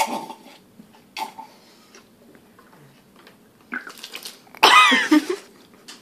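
A woman's throat noises: a couple of short mouth sounds near the start, then, about four and a half seconds in, a loud, rough throat sound lasting under a second that falls in pitch, the loudest thing here.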